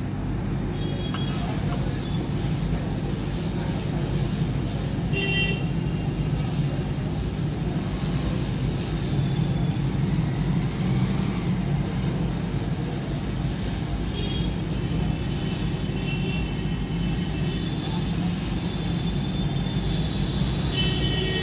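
Steady road traffic rumble with a few short horn toots.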